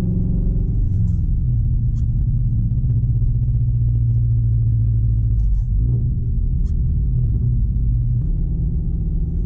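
Subaru BRZ's boxer four-cylinder engine and drivetrain droning steadily inside the cabin while driving on snowy roads, the engine note shifting slightly a few times, with a few faint ticks.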